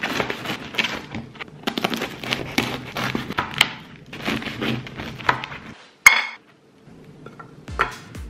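Bread knife sawing through the crusty, oat-topped crust of a seeded whole-grain loaf: a run of crackly, crunching sawing strokes for about six seconds. A single sharp knock follows, the loudest moment, and then it goes quieter.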